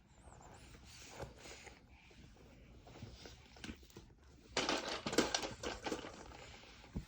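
A children's sound picture book playing a recorded animal sound through its small built-in speaker, a loud, rough burst about four and a half seconds in that lasts about a second and a half, after a few quieter sounds.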